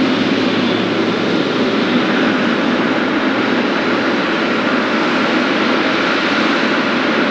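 Boeing 777F freighter's GE90 turbofan jet engines running loud and steady, an even unbroken rush of engine noise.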